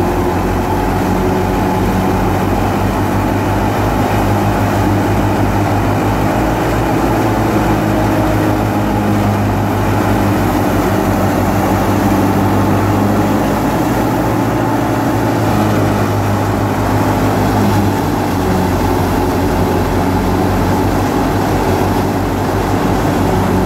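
Al-Shehbaz wheat thresher, driven by a tractor, running steadily and loud while wheat sheaves are fed into its threshing drum. The tractor engine's steady low drone runs under the noise of the machine chewing through the straw.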